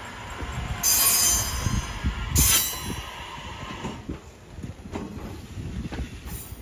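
Train running on the tracks: a continuous low rumble with knocking wheel-on-rail beats, and two short, loud, high-pitched bursts about a second in and again at about two and a half seconds.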